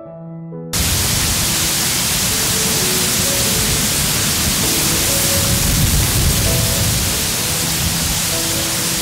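Loud, steady rushing wind with buffeting on the microphone, cutting in suddenly about a second in, over soft piano music.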